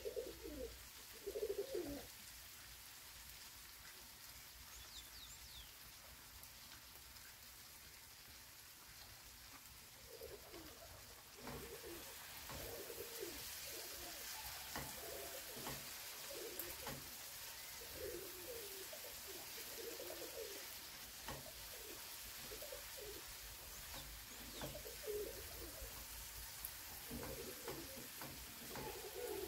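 Ground meat, onion and tomato sauce sizzling faintly in a frying pan while a silicone spatula stirs it, with a run of short, soft, low sounds from about ten seconds in. The hiss of the sizzle grows about eleven seconds in.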